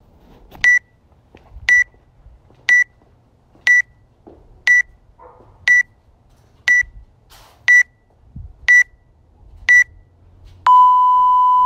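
Workout timer app counting down: ten short high beeps, one a second, then one long lower beep near the end that signals the start of the workout.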